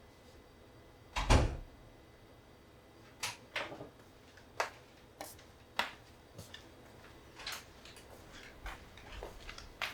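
A heavy thump a little over a second in, then a run of light, irregular clicks and knocks, like objects being handled and set down.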